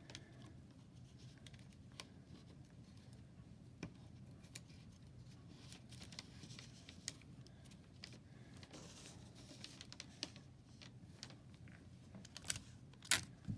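Quiet handling noises of sticky tape being pulled, torn and pressed down over plastic drinking straws on a wooden craft stick: scattered faint clicks and crinkles, with a few sharper clicks near the end.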